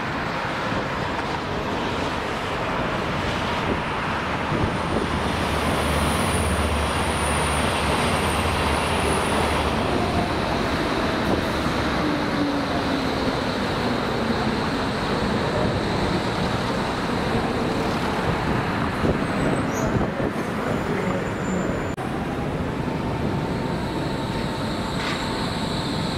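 Berlin S-Bahn electric train running in past the platform. Its motor whine slides down in pitch about halfway through as it slows, over a steady rumble of rail and traffic noise.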